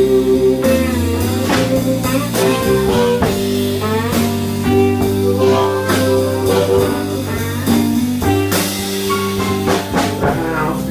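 Blues band playing an instrumental passage, lead guitar with bent notes over a drum kit.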